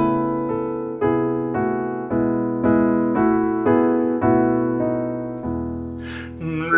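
Yamaha digital piano playing a steady series of struck notes and chords, about two a second, each ringing and fading. Near the end comes a short breathy hiss.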